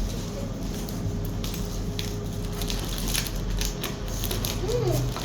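Packaging crinkling and rustling as a toy is unboxed: irregular sharp crackles, growing denser about a second and a half in, over a low steady hum.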